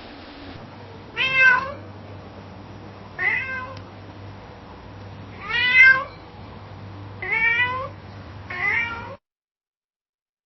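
Domestic cat meowing five times, each meow a short pitched call about half a second long, spaced a second and a half to two and a half seconds apart, over a faint low hum. The sound cuts off abruptly near the end.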